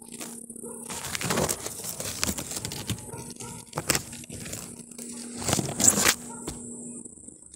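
Chili pepper leaves rustling and crackling as they brush against the phone while it is pushed through the plants, in irregular bursts, loudest about six seconds in.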